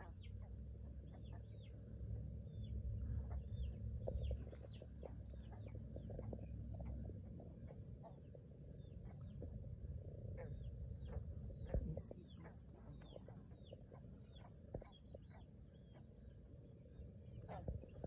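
Frogs calling: many short chirps, each sliding quickly down in pitch, overlapping irregularly at a few per second, over a steady high-pitched drone.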